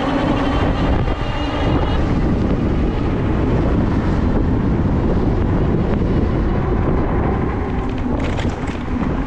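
Wind rushing over the microphone of a camera on an electric bike riding along at speed, a steady, heavy noise, with a few sharp clicks near the end.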